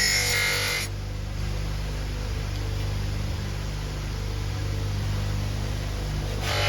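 Background music that thins out about a second in, leaving only a steady low hum, then returns in full near the end.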